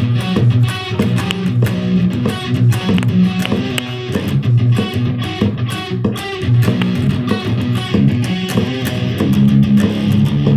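Electric guitar played through a Zoom G1Xon multi-effects processor on a djent riff patch: a distorted riff of short, stop-start low chugs.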